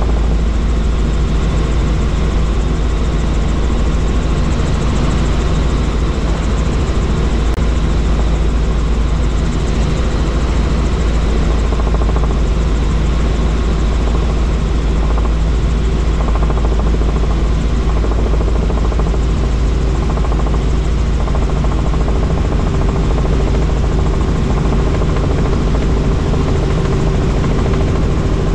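Helicopter engine and rotor running steadily, a loud, even rumble with a constant low hum.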